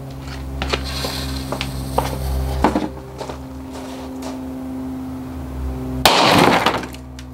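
A lit fuse sputtering with scattered crackles, then a small firecracker going off inside a gingerbread house about six seconds in: one loud, short bang that blasts the cookie walls apart. A steady low hum runs underneath.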